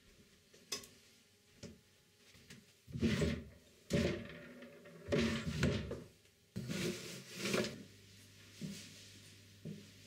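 A string of wooden knocks and rattles, in separate bursts about a second apart, from things being handled and moved around in a small room, such as drawers and furniture.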